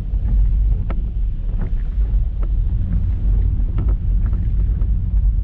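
A car driving on a wet road in the rain: a steady low rumble of engine and tyres, with a few faint ticks scattered through it.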